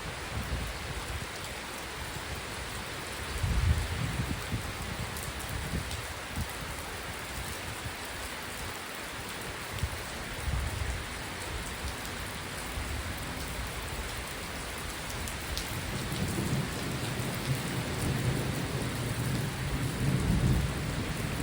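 Steady heavy rain falling, with low rumbles that swell up a few seconds in, again around the middle, and more strongly near the end.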